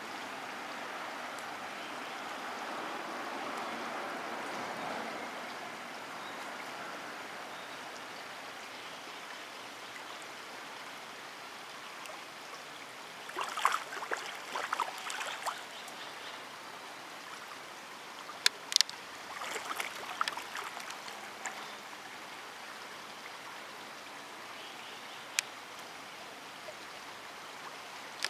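Steady flowing river water, broken by two short clusters of splashing and smacking near the middle as carp break the surface to take bread.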